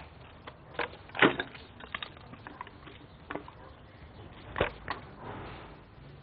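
Footsteps on a littered path over a few seconds: a handful of irregular knocks and scuffs, the loudest about a second in.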